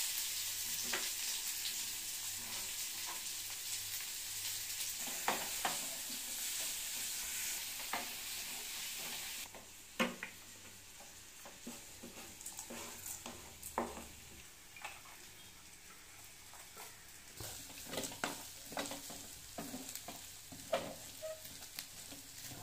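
Hot oil sizzling in a metal kadai, loud at first and dropping abruptly to a faint sizzle about nine seconds in. After that come scattered clicks and scrapes of a wooden spatula stirring in the pan.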